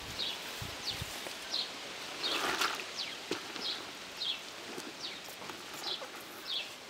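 A wooden stick stirs fermenting nettle macerate in a plastic bucket: the liquid sloshes, and the foam on top crackles and fizzes, with a few low knocks of the stick. Through it a bird repeats a short falling chirp about twice a second.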